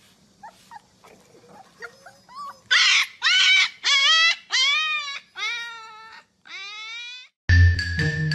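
Dog whining and crying: a few faint whimpers, then about three seconds in a run of about six loud, high cries that rise and fall in pitch, fading toward the end. Marimba-like music starts near the end.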